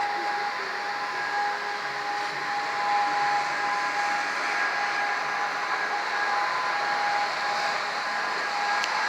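Hörmann ECN electronic siren sounding a steady, unwavering tone in the distance, faint under a louder steady rushing noise.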